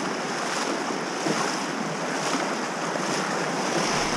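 Fast, shallow river rushing over stones right beside the microphone, with splashing as a person wades through the current.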